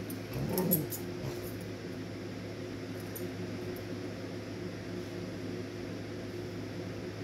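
A dog gives one short growl during rough play, rising then falling in pitch, about half a second in. A steady low hum runs underneath.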